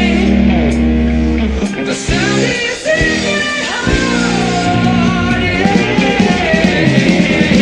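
Rock song played by a band: guitar with bending notes over steady bass guitar and drums, with some singing.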